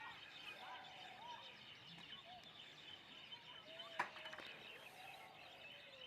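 Faint bird chirps in the background, short rising and falling calls scattered throughout, with one sharp click about four seconds in.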